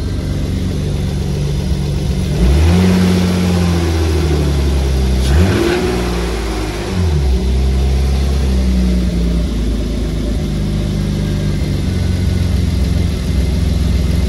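1993 BMW 525i's freshly rebuilt 2.5-litre straight-six on its first run after the rebuild, idling and then given a little throttle. The revs rise about two and a half seconds in, climb briefly higher around five and a half seconds, then drop back to a steady idle about seven seconds in.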